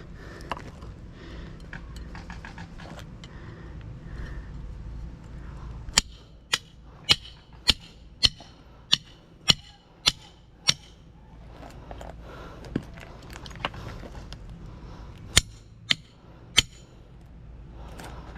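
Hammer striking metal while an electric motor is being torn down for its copper: handling and scraping at first, then a run of about nine sharp, ringing blows roughly every half second, and three more blows near the end.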